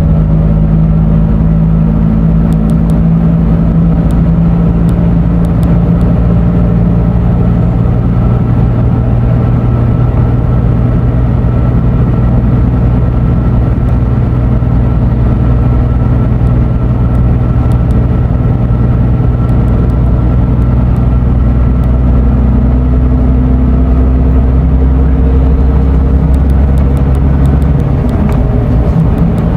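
Scania diesel engine of an Irizar i6S coach running steadily under way, heard from on board. Its pitch shifts about a third of the way in and again near the end.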